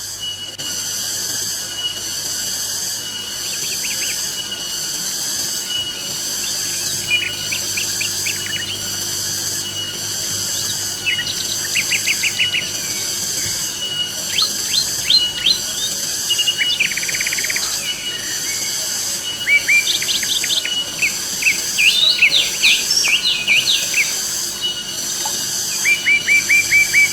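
Birds chirping in short, quick series of high notes, thickest in the second half. Underneath runs a steady hiss that pulses regularly in the treble.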